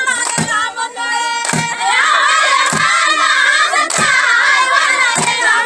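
A group of Somali women singing a baraanbur, their many high voices rising into shrill ululating cries about two seconds in, over a steady beat struck a little more than once a second.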